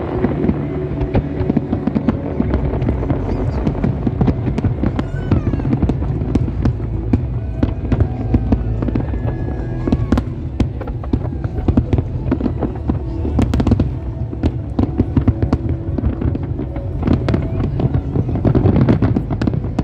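Aerial fireworks display: a dense, continuous barrage of shell bursts, many sharp bangs a second over a steady low rumble, heaviest near the end.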